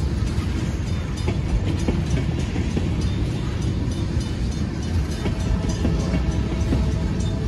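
Freight train of railroad tank cars rolling past over a road crossing. There is a steady rumble of steel wheels on rail, broken by irregular clicks and clanks.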